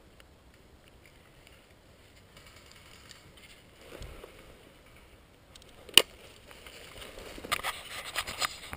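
Footsteps crunching through snow and brush, faint at first and then a quickening run of crunches in the last second or two. About six seconds in there is a single sharp snap, the loudest sound here.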